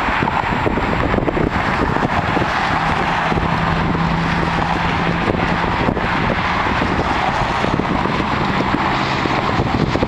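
Strong wind buffeting the microphone, a loud steady rumble and rush, with a faint steady hum from about three to six seconds in.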